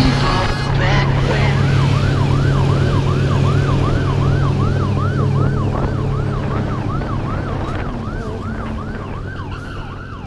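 A siren in a fast yelp pattern, rising and falling about three times a second, over a steady low hum. It fades out near the end.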